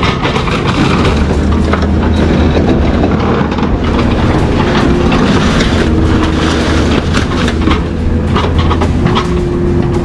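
Continuous loud metal clanking and rattling, with many sharp knocks over a steady low mechanical hum.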